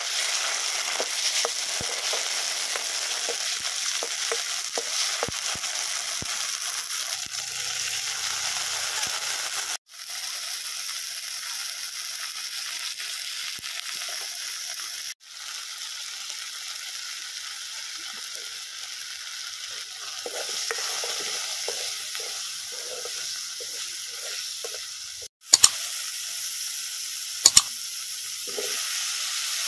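Chopped onions and masala paste sizzling in hot oil in an iron kadai, with a metal spoon stirring and scraping the pan. A steady frying hiss drops out briefly three times. Near the end come two loud, sharp clicks.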